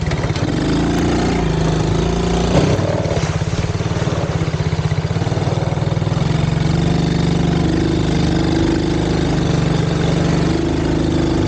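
ATV engine running steadily under throttle while the quad is ridden along a muddy dirt track. The engine note shifts about two and a half seconds in.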